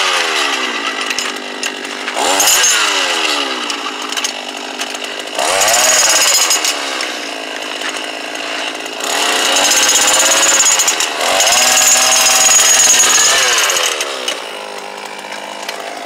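Gasoline jackhammer breaking rock: its engine revs up in four surges as the bit hammers in, dropping back between them, and winds down near the end.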